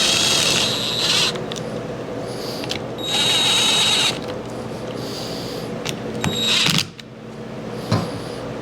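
Power driver running in three short bursts of about a second each, with a high whir, driving down the bolts on a tractor hydraulic pump housing.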